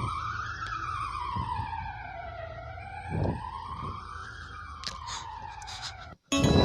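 Emergency alert siren wailing: a single tone slides slowly up and down, about three and a half seconds per rise and fall. Near the end it cuts off abruptly and a much louder, harsh alarm tone bursts in.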